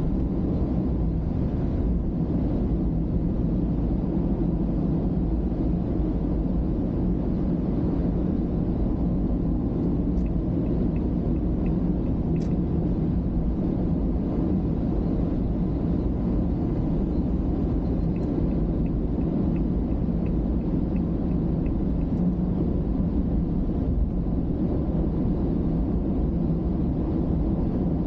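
Steady low rumble of a car's road and engine noise heard from inside the cabin while cruising at expressway speed. Twice, a faint regular ticking runs for a few seconds, about two ticks a second.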